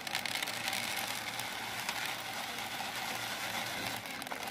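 Dried split lentils pouring from a paper bag onto a plastic tray: a steady patter of many small grains landing, with many fine ticks.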